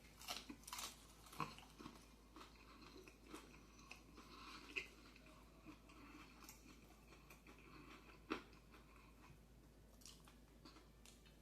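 Faint chewing with small wet clicks and crunches at irregular intervals, a person eating fried chicken and salad with the mouth close to the microphone; one sharper click about eight seconds in.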